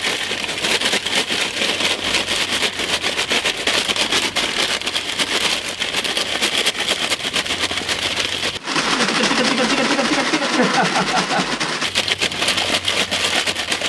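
Paper bags of French fries shaken hard to spread the seasoning, a fast, continuous rustling rattle of fries and powder inside. About two-thirds through, the rattling breaks off for about three seconds for a different stretch with some pitched sound, then starts again.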